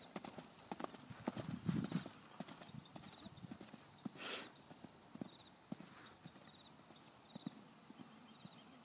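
Horse cantering on a sand arena, its hoofbeats thudding in a rolling rhythm and growing fainter as it moves away. There is a short rush of noise about four seconds in.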